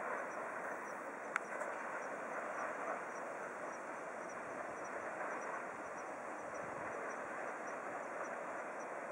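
Waterfall: a steady rush of falling water, with one brief click about a second and a half in.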